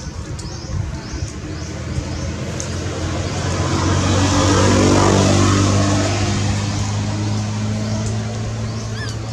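A motor vehicle's engine passing by. It grows louder over the first few seconds, peaks about halfway, then fades.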